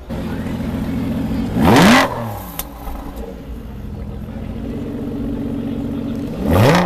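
Aston Martin V12 Vantage's V12 engine idling at the exhaust, blipped twice to a sharp rev that rises quickly and falls straight back to idle, about five seconds apart.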